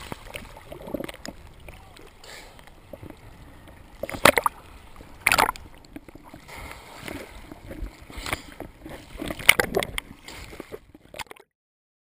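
Sea water sloshing and splashing around a camera bobbing at the surface in choppy waves, with several louder, irregular splashes. The sound cuts off a second before the end.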